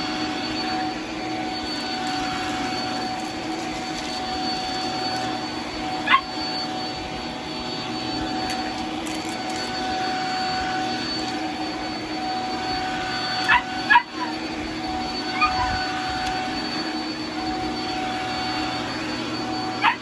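Shark Flex vacuum running steadily over a rug, with a constant high motor whine. A dog yips sharply once about six seconds in, then two or three more times around fourteen to fifteen seconds.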